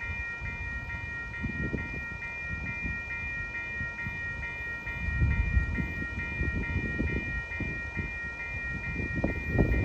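Railroad grade-crossing warning bell ringing in a steady repeating clang, about two strokes a second, warning of an approaching train, with an uneven low rumble underneath.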